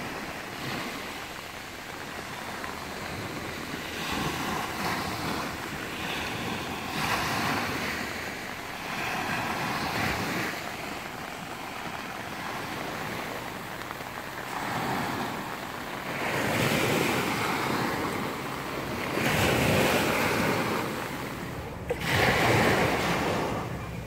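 Small waves breaking and washing up a sandy beach. The surf rises and falls every few seconds, with the loudest swells in the last third.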